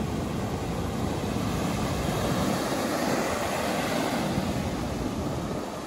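Surf breaking on a beach and wind buffeting the microphone, a steady rushing noise.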